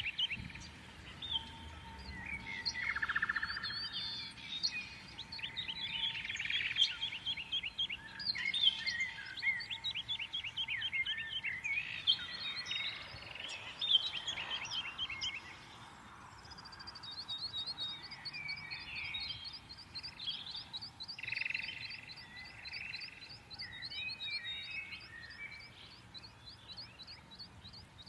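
Several birds chirping and singing over one another in quick trills and twitters, with a fast, evenly repeated high note series starting a little past the middle.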